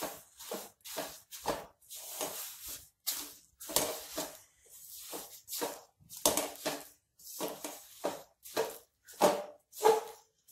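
Spatula stirring roasted sesame seeds into thick jaggery syrup in a metal kadhai: repeated scraping and rustling strokes, about two a second.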